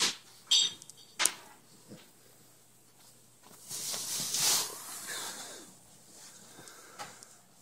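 Yorkshire terriers scuffling with a plush toy on a blanket-covered couch: three sharp clicks in the first second and a half, then a longer stretch of rustling and snuffling about midway.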